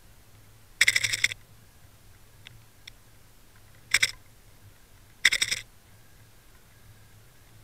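Three short bursts of rapid rattling clicks, heard underwater from a towed camera rig, over a faint steady low hum.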